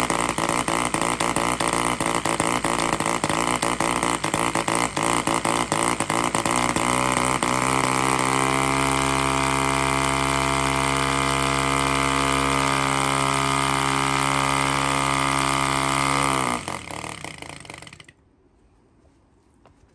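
Nova-1 4.5cc model diesel (compression-ignition) engine turning a wooden propeller. It runs rough and uneven at first, then settles into a smooth steady run about eight seconds in, as the adjuster on top of the cylinder is worked. Near the end it slows, falling in pitch, and stops.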